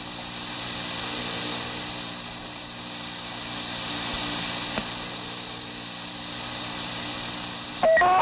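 Steady hiss and hum of an old police dispatch radio tape between transmissions, slowly swelling and fading, with a faint click just before the middle. A loud radio voice breaks in near the end.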